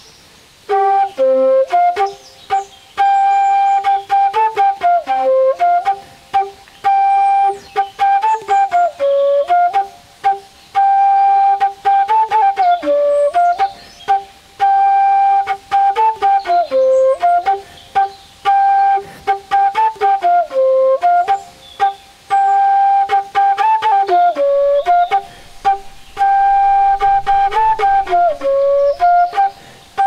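Bamboo bansuri (Indian transverse flute) playing a slow melody of long held notes. Each phrase dips lower and climbs back, with short breaks for breath between phrases.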